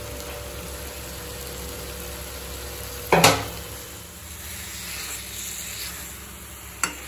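Marinated chicken pieces sizzling in a wok of fried onions while a spatula stirs them. The spatula clatters loudly against the pan about three seconds in, and there is a short click near the end.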